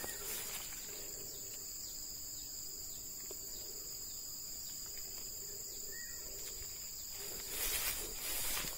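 Steady high-pitched insect chorus in two unbroken tones, with rustling noise coming in near the end.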